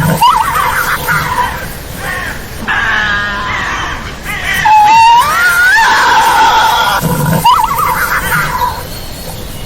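Tasmanian devil screaming: a series of pitched cries, several rising in pitch, the loudest about five seconds in.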